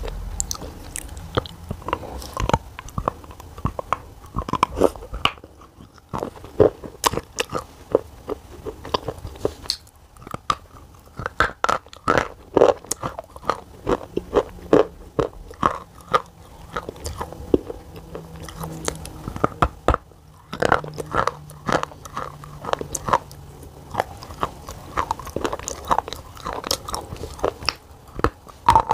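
A person biting and chewing black shale clay, with many sharp, irregular crunches.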